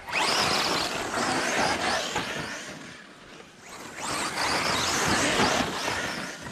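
Radio-controlled off-road car driving fast over a dirt track, its motor whining up and down in pitch over the noise of its tyres. It passes by twice, dipping in between.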